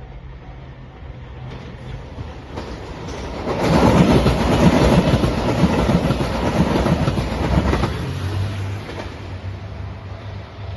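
A JR Shikoku 2700-series diesel multiple unit passing a level crossing. The noise builds over the first few seconds and is loudest for about four seconds in the middle, with wheels clattering over the rails. It then eases to a steady low diesel engine drone. A level crossing bell rings steadily beneath it at the quieter start and end.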